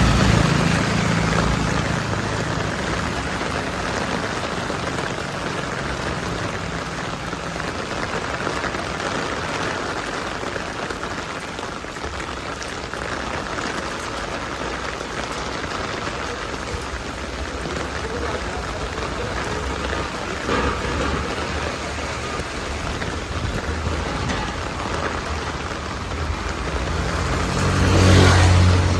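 Steady rain falling on the street, an even hiss throughout. A vehicle swishes past on the wet road near the end, and another right at the start.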